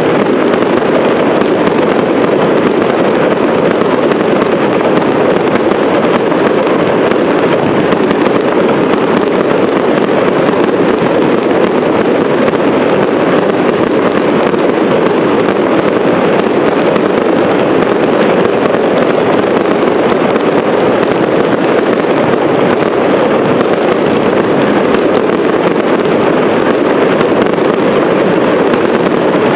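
Professional fireworks display: a dense, unbroken barrage of launches and bursting shells, the bangs and crackles following too fast to separate.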